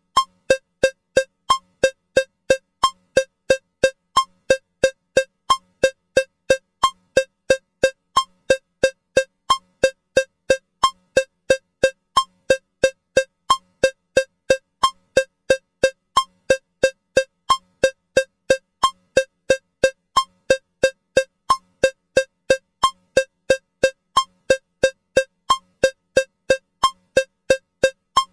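Metronome ticking with a cowbell sound at 180 beats a minute, three even strikes a second, with every fourth strike slightly different, marking bars of four.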